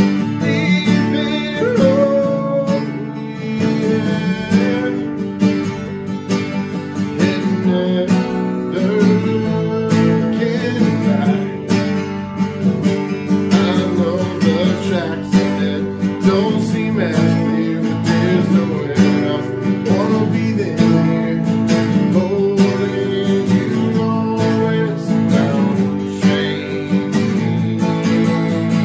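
Two acoustic guitars playing a song together, chords strummed with picked notes over them.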